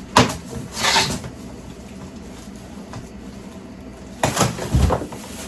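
Boxes and packaging being handled: a sharp knock, a brief rustle, then near the end a run of knocks and rustling with one heavy thump.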